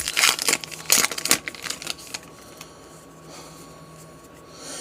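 Wrapper of a baseball card pack crinkling and tearing as it is opened, with several sharp bursts in the first two seconds, then quieter rustling.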